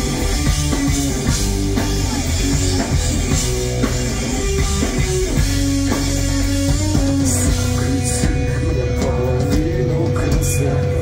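Live pop-punk band playing an instrumental passage with electric guitars, bass and drum kit, loud and continuous, with a guitar note held steady from about seven seconds in.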